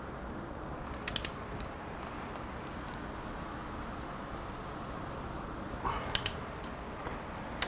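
A few sharp metallic clicks from a ratcheting torque wrench turning the front axle bolt: a pair about a second in and a small cluster about six seconds in, over a steady low hiss.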